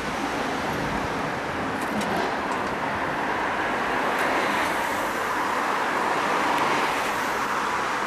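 Street traffic noise: a steady hiss of cars driving past on the road, growing a little louder in the second half.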